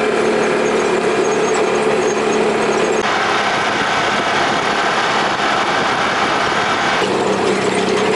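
Off-road vehicle engine running steadily while driving on a dirt and gravel trail, heard from on board. The engine sound changes abruptly about three seconds in and again about seven seconds in.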